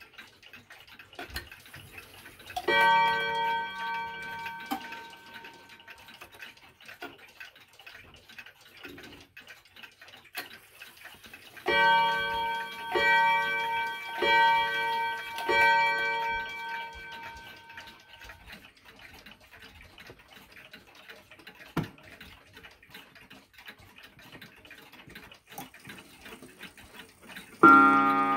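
Seiko 30-day pendulum wall clock ticking while its hands are turned forward: it strikes near the start as the hands pass the half hour, then strikes four times for four o'clock about twelve seconds in. Near the end a wooden mantel clock gives a single louder, long-ringing half-hour strike.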